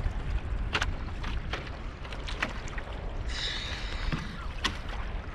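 Wind on the microphone and water lapping against a plastic sit-on-top kayak on the open sea, with scattered small knocks and clicks from the hull and fishing gear. A brief hiss of water about three seconds in.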